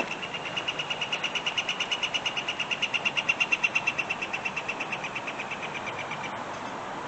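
Northern flicker giving its long call: a fast, even series of high notes, about eight a second, that swells in loudness and then fades, stopping shortly before the end.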